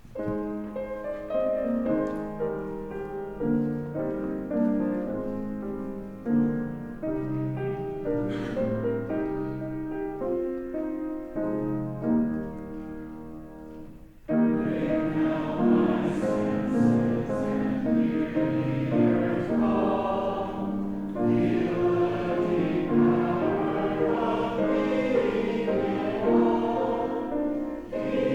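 An instrumental introduction to a hymn on a keyboard, with steady held chords. About halfway through, after a short break, the congregation comes in singing the hymn together with the accompaniment.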